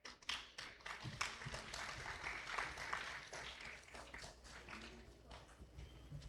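Audience clapping. It builds quickly and is thickest for a couple of seconds, then thins out toward the end.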